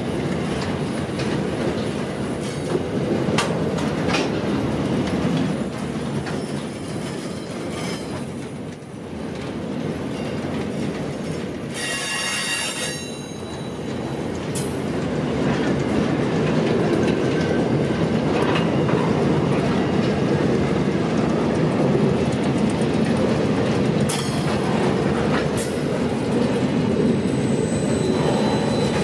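Freight train wagons rolling past close by: a steady rumble of steel wheels on rail, with scattered clicks as wheels pass over the track. About twelve seconds in, a brief high-pitched metallic wheel squeal rings out.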